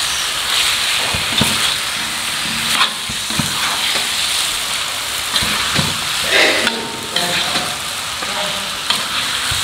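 Chicken feet, meatballs and sausage in spice paste sizzling in a stainless steel wok while a metal spatula stirs them, scraping and knocking against the pan again and again.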